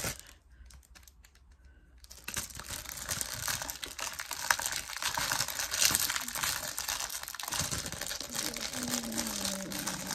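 Clear plastic wrapping crinkling and tearing as it is pulled open by hand, beginning about two seconds in after a short lull.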